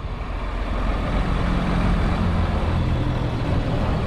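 Diesel HGV engine running at low revs, a steady low rumble.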